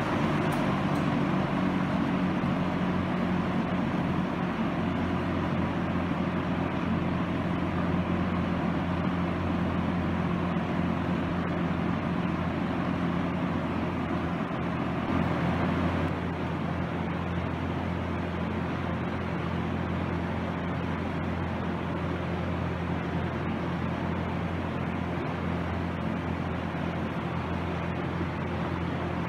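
Dayton Model 4C418 20-inch box fan running steadily on medium speed: a constant rush of air with a low motor hum. It settles slightly quieter about sixteen seconds in.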